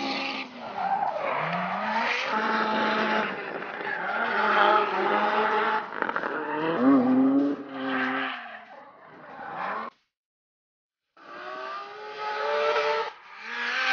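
Drift car engines revving up and down, with tyres squealing as the cars slide sideways through the course. The sound cuts out for about a second, about ten seconds in.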